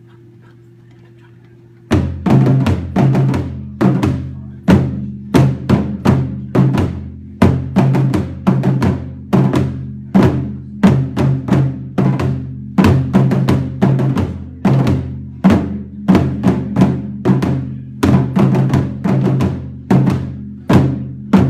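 West African drum ensemble of djembes and stick-played dunun bass drums, starting about two seconds in and playing a steady, evenly spaced beat with heavy accented strokes and deep ringing bass underneath.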